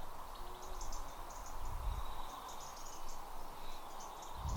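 Outdoor ambience with repeated short bursts of rapid, high-pitched chirping, about one burst every half second to second, over a steady background hiss and a low rumble.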